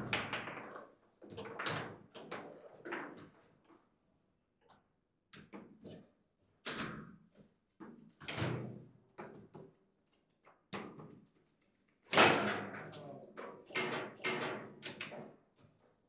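Foosball table in play: the ball cracks against the plastic figures and the table walls and the rods clack, in irregular flurries of sharp knocks. The hardest strikes come about twelve seconds in, during a point in which a goal is scored.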